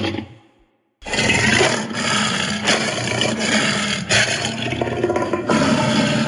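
Tyrannosaurus rex sound effect mixed from lion and King Kong roars: a roar fades out, and after a short silence a harsh, rasping growl starts about a second in and goes on.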